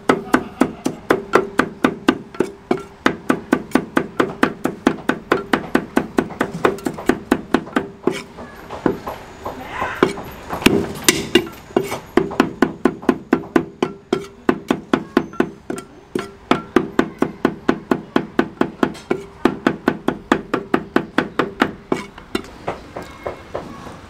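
Chinese cleaver chopping rapidly on a round wooden chopping block, mincing green chili peppers and garlic: an even run of sharp knocks, about four or five a second. The rhythm breaks briefly about ten seconds in, and the chopping stops near the end.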